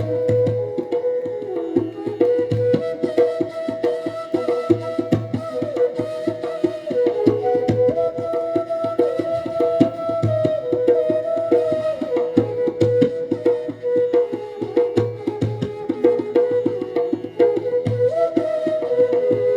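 Indian instrumental music: a flute plays a melody in held, stepping notes over a sustained drone, with a tabla playing a fast, steady rhythm underneath.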